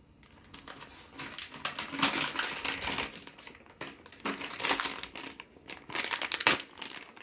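Clear plastic bag crinkling as hands pull a small vinyl figurine out of it, in irregular crackles that come and go.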